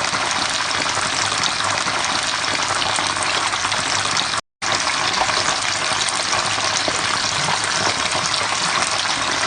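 Steady, dense hiss of a rain recording played as a relaxing sleep sound, crackling much like oil frying. It cuts out completely for a split second about halfway through, then resumes unchanged.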